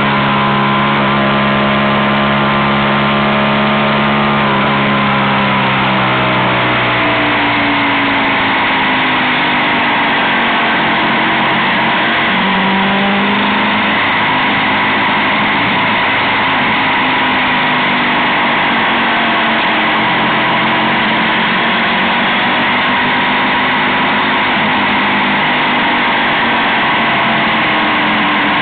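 Motorcycle engine running under way, heard from the bike itself over steady wind rush. Its pitch holds steady, drops about six seconds in as the revs fall, and rises briefly around twelve seconds.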